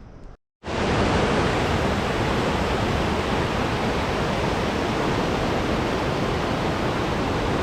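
Loud, steady roar of rushing water, like a waterfall heard up close, cutting in suddenly after a brief silence about half a second in.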